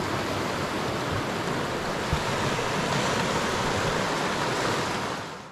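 Snowy River running high after overnight rain: a steady rush of flowing water that falls away just before the end.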